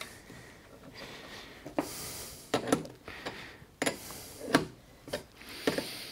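Spanner on the collet nut of a DeWalt D26204K router being worked to tighten a freshly fitted cutter: a string of sharp metallic clicks, roughly one every half second to a second, starting about two seconds in.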